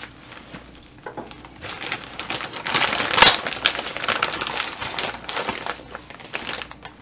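Clear plastic bag crinkling and rustling as it is pulled off a spool of 3D printer filament, starting after about a second and a half, with one sharp, loud crackle about three seconds in.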